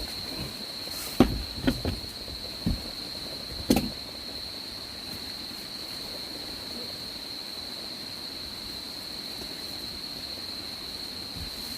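Insects trilling steadily at one high pitch, with a few short knocks and thumps in the first four seconds.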